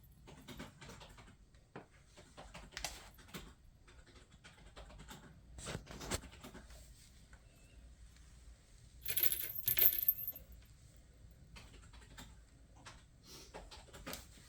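Kitten playing on a cat tree: scattered light taps and clicks. About nine seconds in there are two bright metallic jingles in quick succession, the loudest sounds.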